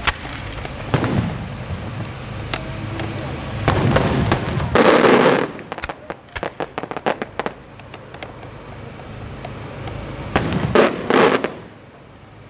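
Aerial firework shells by St. Mary Fireworks bursting with sharp bangs. A louder, longer burst comes about five seconds in, followed by a quick run of crackles from crackling stars, and two more loud bursts come near the end.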